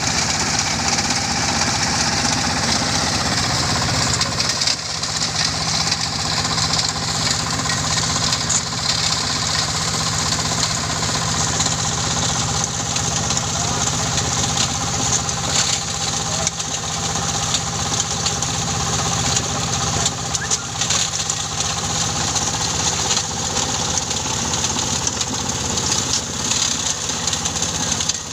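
Engine-driven stone-grinding machine for coral gravel running steadily, a continuous mechanical din of engine drone and grinding noise.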